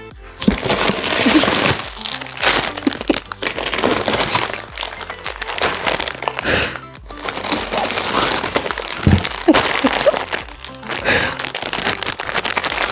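Packaging crinkling and rustling in irregular handfuls as items are pulled from a parcel, over background music.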